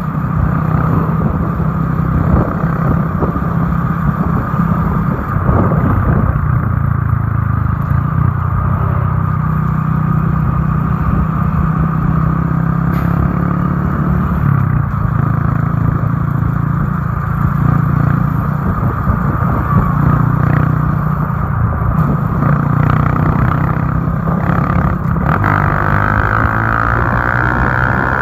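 Motorcycle engine running steadily at cruising speed, heard from on the bike, with a steady rush of air and road noise.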